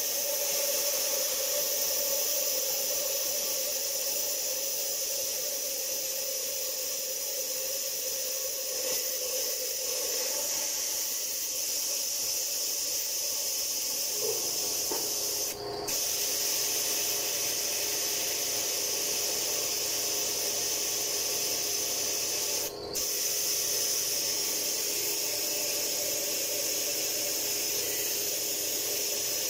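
Compressed air hissing steadily as it is blown into the engine's cooling system, forcing the coolant out of the radiator. The air cuts off briefly twice, about halfway through and again some seven seconds later.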